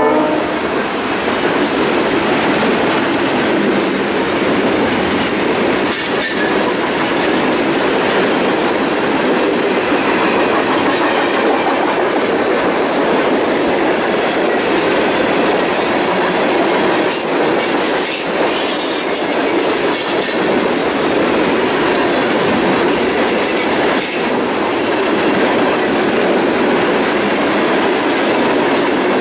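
Freight cars, hoppers and tank cars, rolling past with a steady rumble of steel wheels on rail. Occasional clicks come from the wheels crossing rail joints, and a faint high wheel squeal rises a little past the middle.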